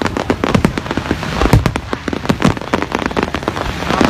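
Aerial fireworks display: a dense, unbroken crackle of many small reports, with louder bangs from bursting shells mixed in at uneven intervals.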